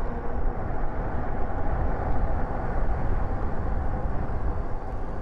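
Steady wind rumble on the microphone, with road noise, while riding an electric bike.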